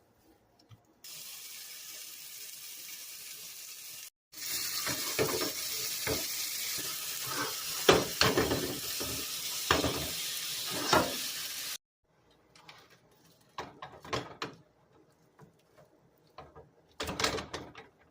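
Ribeye steak sizzling in a hot pan, a steady hiss with sharp crackles and pops that gets louder after a brief break about four seconds in and cuts off suddenly about twelve seconds in. Scattered light clicks and knocks of handling follow near the end.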